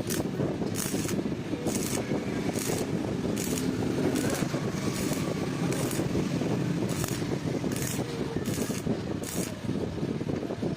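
Steady mechanical running noise with a short, hissing scraping stroke repeating about once a second.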